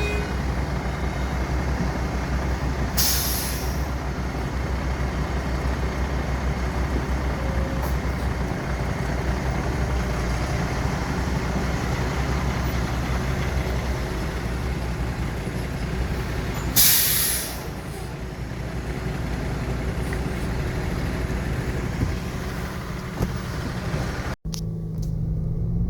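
Steady city street traffic rumble with heavy vehicles, broken twice, about 3 s and 17 s in, by a short sharp hiss of a bus or truck air brake. Near the end the sound cuts off abruptly and gives way to a quieter steady low hum.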